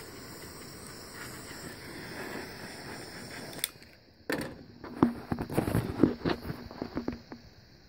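A handheld heat gun blows steadily while shrinking heat-shrink tubing over a crimped wire splice, then switches off with a click about three and a half seconds in. Irregular knocks and handling clatter follow for about three seconds.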